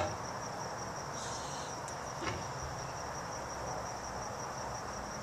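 Crickets chirping steadily in a high, even pulse, with a faint click a little over two seconds in.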